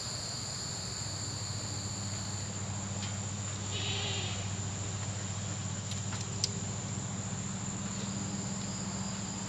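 Insects, crickets by their sound, keep up a steady high-pitched trill, over a steady low hum. A short buzz comes about four seconds in, and a single sharp click about six and a half seconds in.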